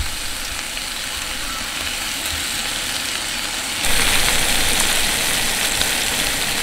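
Raw bacon strips sizzling in a stainless steel frying pan on a two-burner propane camp stove, a steady hiss that gets louder about four seconds in.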